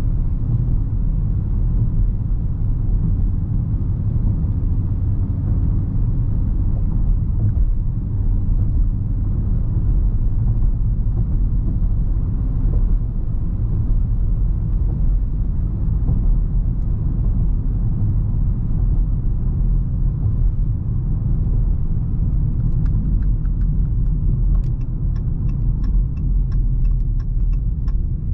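Dodge Charger R/T's 5.7-litre V8 running steadily while driving, a low, even sound mixed with road noise. Near the end a faint, evenly spaced ticking comes in over it.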